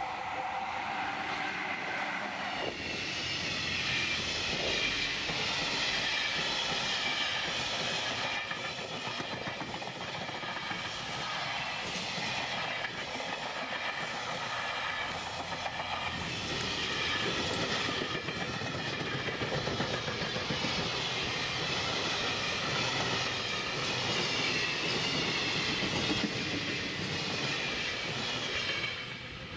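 Freight train hauled by an EF66 electric locomotive passing close by: a long steady rush of wheels on rail with the clickety-clack of the wagons over the rail joints, dropping off sharply near the end.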